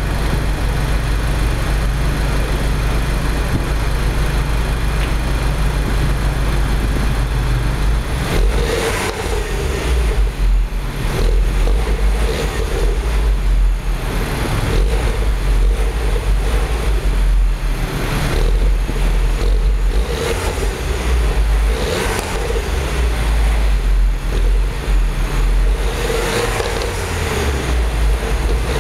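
Stock exhaust of a MINI Cooper S R56 with its 1.6-litre turbocharged four-cylinder, idling steadily with a low rumble, then revved in a series of short blips from about eight seconds in.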